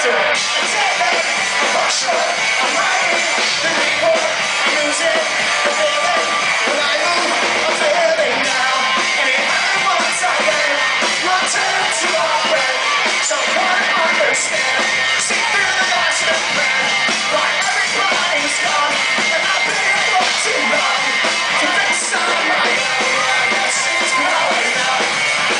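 Live rock band playing: a singer's voice over electric guitar and drum kit, steady and loud, sounding thin with little bass.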